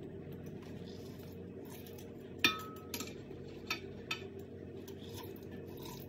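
Metal hand-held lemon squeezer clinking lightly against the rim of a stainless-steel blender jar as a lemon is pressed: a few sharp clinks, the strongest about two and a half seconds in, over a steady low hum.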